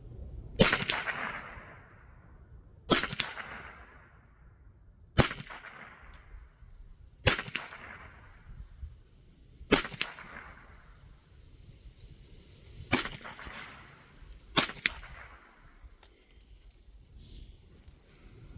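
Seven shots from a Marlin 795 semi-automatic .22 LR rifle, fired at an uneven pace about two to three seconds apart, each with a short echo trailing after it.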